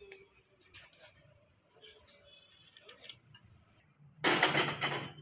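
Faint, scattered metallic clicks of fingers and tools working the bolts of a tractor's hydraulic distributor cover. About four seconds in, a loud rushing noise lasts about a second.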